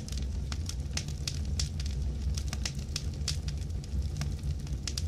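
Fire burning: a steady low rumble of flames with frequent sharp, irregular crackles and pops.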